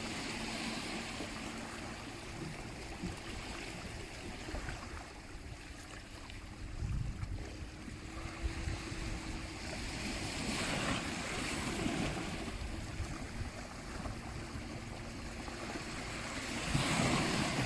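Sea waves washing onto a shore, swelling and falling back several times, with the louder swells about midway and near the end.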